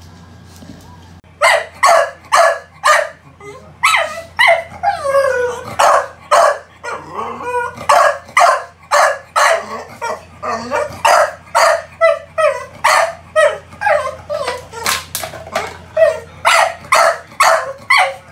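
American Bully barking over and over, about two loud barks a second, starting about a second in, with falling whines mixed in for a few seconds in the middle.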